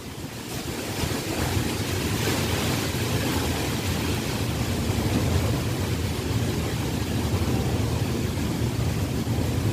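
Wind on the microphone: a steady low rush of noise that rises over the first second and then holds.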